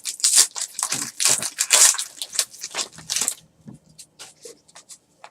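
Trading-card pack wrapper crinkling and tearing as a pack is opened, with rustling that thins out after about three seconds into a few faint ticks of cards being handled.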